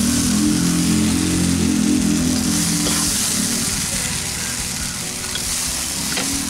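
Steel spatula scraping and scooping cooked rice and grated raw papaya out of a hot nonstick pan, over a steady sizzling hiss. A low hum sounds through the first few seconds.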